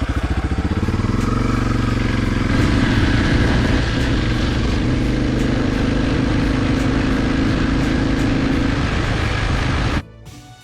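Suzuki DR650's single-cylinder four-stroke thumper engine running steadily at idle, just after its counterbalancer chain has been adjusted and the oil refilled. The revs rise a little a couple of seconds in, and the engine cuts off suddenly near the end.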